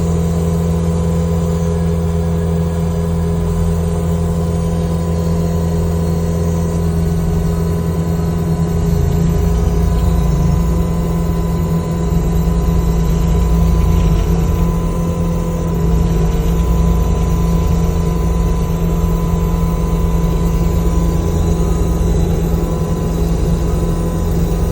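New Holland C345 compact track loader's engine running continuously while driving a Jenkins Iron and Steel hydraulic stump grinder attachment, with a steady high whine over the engine. The load swells in the middle, as the grinder cuts into a cedar stump.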